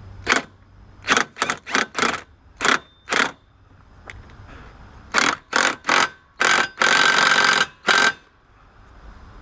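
Ratchet wrench tightening a seatbelt mounting bolt in short clicking strokes, a handful at a time, with one longer run of clicks near the end.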